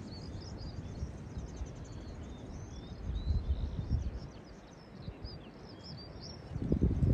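Small songbirds singing continuously with high chirps and trills, over a low wind rumble on the microphone that gusts about three seconds in and again near the end.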